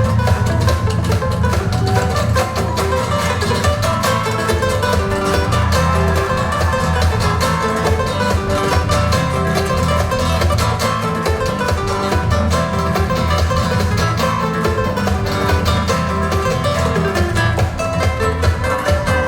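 A recording of fast-picked acoustic guitar music with a steady bass beneath, played back from CD over hi-fi loudspeakers in a demo room.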